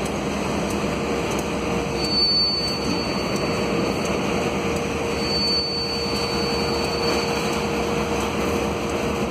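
Freight train of grain hopper wagons rolling slowly past, a steady rumble of wheels on the rails. A thin, high squeal sounds twice, about two seconds in and again about five seconds in.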